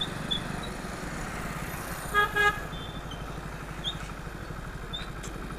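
Motorcycle engine running at low speed in slow traffic, with a vehicle horn giving a short double honk about two seconds in, the loudest sound.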